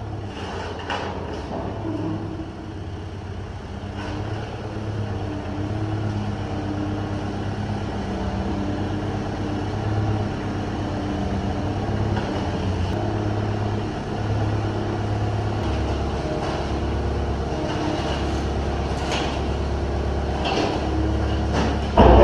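Forklift running, its motor and hydraulics humming with a low note that shifts in steps and stops and starts as it lifts and swings a large steel smoker drum. Near the end a heavy thud as the drum comes down on the floor.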